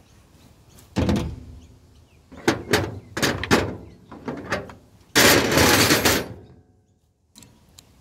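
Metal knocks and clunks of hand tools and parts as a small petrol generator is taken apart: a thud about a second in, a few sharp knocks around three seconds, then a louder rattling clatter lasting about a second.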